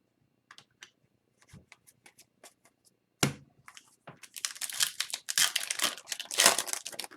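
A few light clicks of trading cards being handled, a sharp knock about three seconds in, then a few seconds of loud crinkling and tearing of a foil hockey-card pack wrapper being opened.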